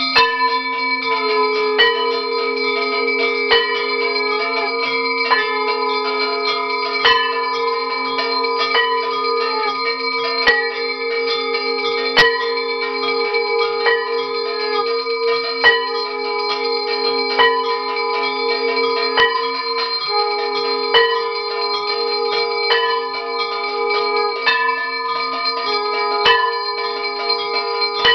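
Puja bells ringing continuously during a Chandi puja aarti, a dense steady ring with a sharp strike about every second and three-quarters.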